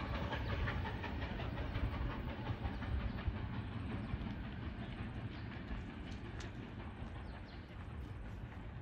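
A train running past and drawing away, its noise slowly fading, with a fast, even ticking in the first few seconds.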